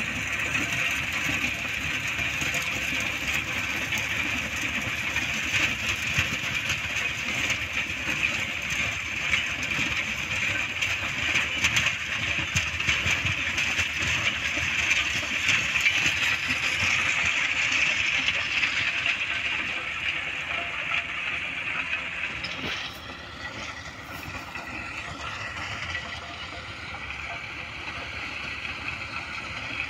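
John Deere 5210 tractor's three-cylinder diesel running steadily under load while pulling a rotavator through dry soil. The sound drops in level about 23 seconds in.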